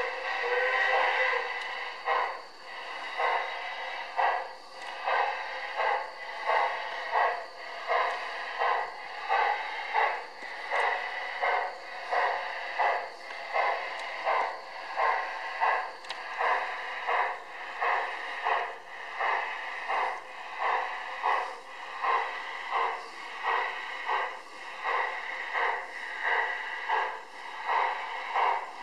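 Garden-scale model steam locomotive chuffing in a steady, even rhythm, a little over one chuff a second.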